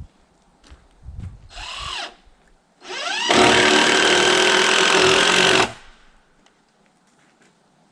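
A power drill is triggered briefly, then spun up again and run steadily for about two and a half seconds before stopping sharply.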